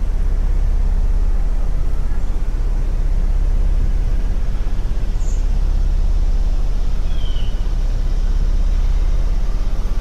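Steady low outdoor rumble with an even hiss above it, with a couple of faint, short high chirps about five and seven seconds in.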